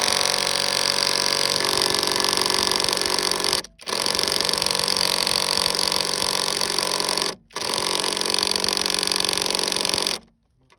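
A handheld power tool running in three long bursts of about three and a half seconds each, with brief stops between, tightening the fixing on a car's new upper strut mount.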